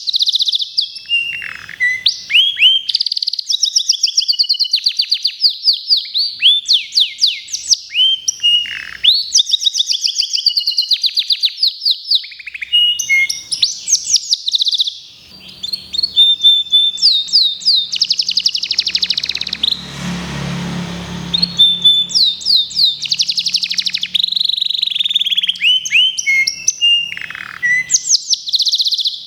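Local domestic canary (kenari lokal) singing a long, continuous song of rapid trills and rolling phrases, with a brief break about halfway. A faint low hum sits under the song in the middle part.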